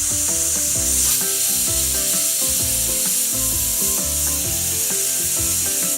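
Pressure cooker whistle: steam jetting from the weight valve in a loud, steady hiss that cuts off suddenly, the sign that the cooker has come up to pressure and the rice is cooked.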